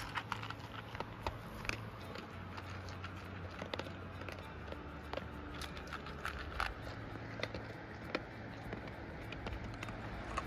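A dog crunching dry kibble from a metal bowl: a run of short, irregular crunches and clicks.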